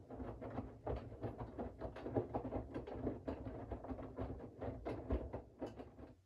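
Siemens iQ700 front-loading washing machine turning its drum during a wash: wet laundry and water sloshing and tumbling, with irregular soft knocks over a low motor hum. It stops abruptly near the end, as the drum pauses in its wash rhythm.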